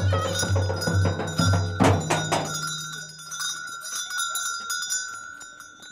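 Dohol drum and sorna playing folk music with a steady beat, stopping about two seconds in on a last loud drum stroke. After that, light bell jingling and a thin high note held on quietly.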